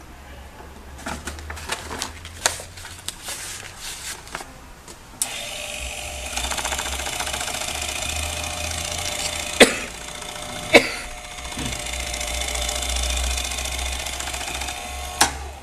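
Clicks and knocks from the glue binding machine's clamp lever and handling, then about five seconds in a small electric motor starts and runs steadily, driving the glue carriage along its chain-driven rails over the book spine. Two sharp knocks come partway through, and it stops with a click near the end.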